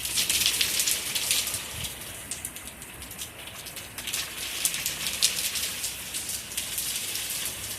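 Thunderstorm rain falling steadily, with many individual drops ticking sharply close to the microphone.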